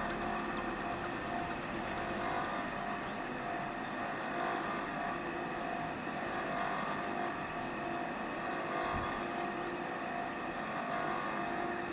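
Domestic electric water pump running steadily, a constant whirring hum over a rushing noise.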